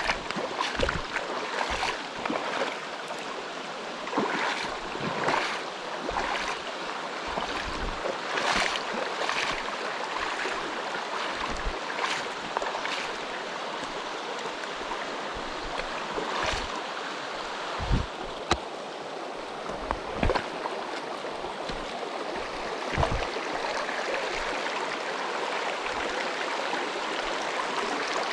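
Mountain stream rushing steadily over rocks, with irregular low thumps and brief splashes every few seconds, the sharpest about two-thirds of the way in.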